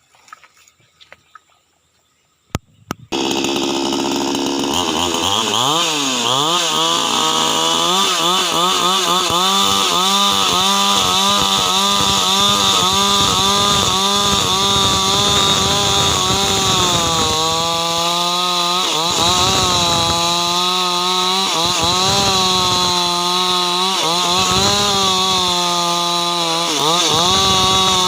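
Ogawa two-stroke petrol chainsaw running, coming in suddenly about three seconds in after a few faint clicks, its engine pitch repeatedly dipping and recovering under load as it rips through hardwood.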